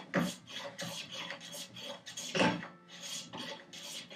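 Smoothing plane shaving the wooden vise chop in quick, short strokes, about three a second, with one louder, longer stroke about two and a half seconds in.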